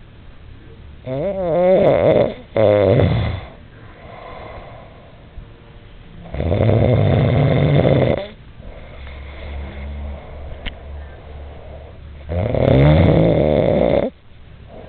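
Two sleeping men snoring loudly: three long snores about five seconds apart, the first split in two with a gliding pitch, and softer snoring breaths between.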